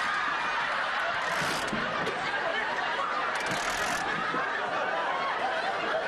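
Studio audience laughing, a steady wash of many people's laughter that holds throughout.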